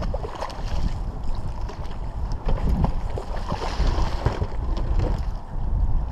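Wind buffeting the microphone as a steady low rumble, with a hooked muskie thrashing and splashing at the water's surface about four seconds in.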